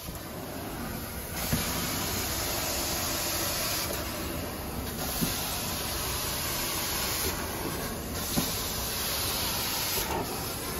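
Carpet-cleaning extraction wand hissing as it sprays and vacuums water out of the carpet in long strokes. The hiss drops briefly between strokes, about every three seconds, with a few light clicks.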